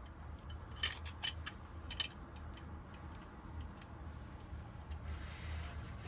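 A few sharp, small metallic clicks of a key and door lock cylinder being handled and worked, with a soft scraping near the end, over a steady low hum.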